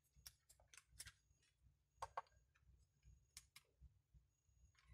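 Near silence with a few faint clicks and taps as the Alfawise Y1 smartwatch and its clip-on USB charging cable are handled and fitted together; two slightly louder clicks come about two seconds in.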